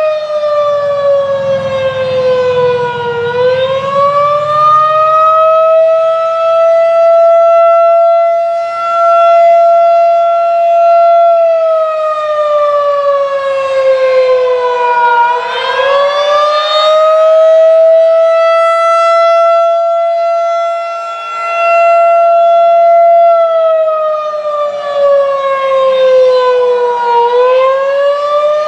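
Federal Signal 2001-DC outdoor warning siren sounding a custom attack signal. It holds one loud, steady tone that dips in pitch and slides back up three times, about every twelve seconds.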